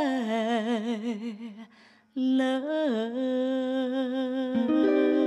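A woman's sung last note, held with a wide vibrato and sliding slightly down, fades out; after a brief gap, sustained archtop jazz guitar chords start abruptly about two seconds in, moving to a new chord near the end.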